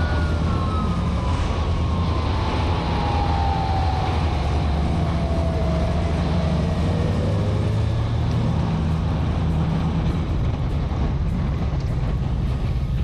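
Motorcycle engines running steadily under a noisy rush of road sound, with a pitched tone that slowly falls over the first eight seconds or so.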